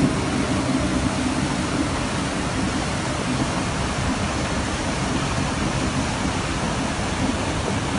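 Flash-flood torrent rushing steadily, a dense unbroken noise of fast-moving floodwater.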